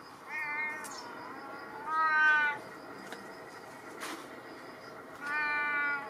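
A stray cat meowing three times to beg for food, the middle meow the loudest and longest.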